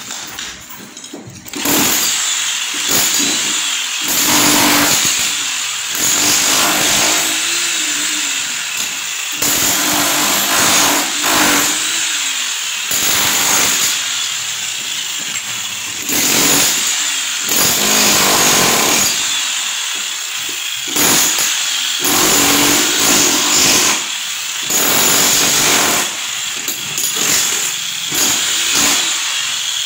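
A handheld power tool runs in repeated spells of a few seconds each with short breaks between them, working the building's masonry. It starts about a second and a half in.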